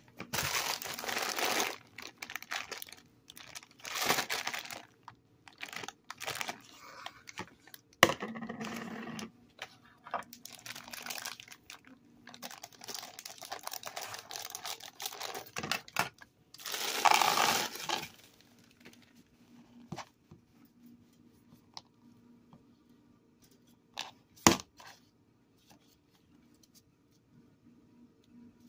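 Plastic candy bag crinkling and rustling as it is handled and cut open with scissors, then a loud rush of gummy candies poured into a plastic bowl about two-thirds of the way through. The last part is quiet apart from a sharp tap or two.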